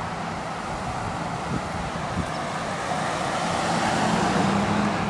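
Small 178cc single-cylinder pressure-washer engine on a motorized stand-up scooter running hard, its steady drone growing louder about three seconds in.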